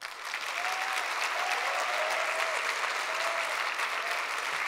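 Audience applauding steadily in a large hall, the clapping starting abruptly as a speech line ends.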